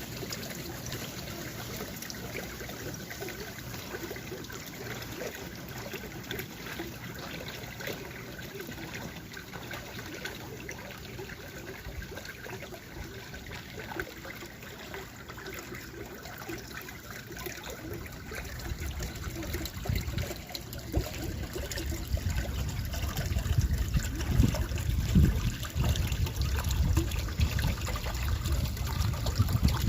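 Creek water trickling steadily. From about two-thirds of the way in, a low rumble joins it and the sound grows louder.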